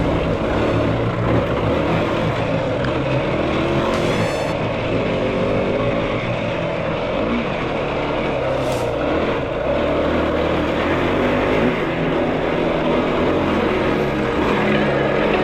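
Yamaha YFZ450R quad's single-cylinder four-stroke engine running steadily.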